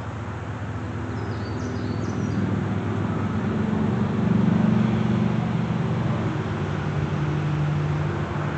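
An engine running with a steady low hum, growing louder to a peak about four and a half seconds in and then holding steady.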